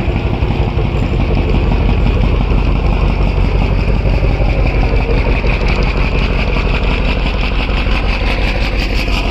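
The passenger launch's marine diesel engine running steadily on a test run, a continuous low rumble with a fast, even firing beat.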